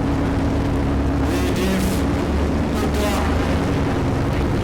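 Modified 4x4 competition truck's engine running at fairly steady revs as it crawls an obstacle course.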